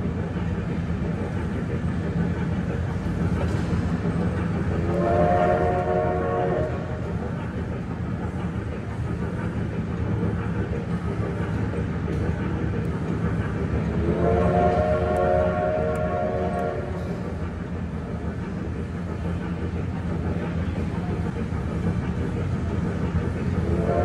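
Wattman electric mall train's steam-style whistle sounding a chord of several notes, twice for about two seconds each, with a third blast starting near the end, over the steady low rumble of the train running.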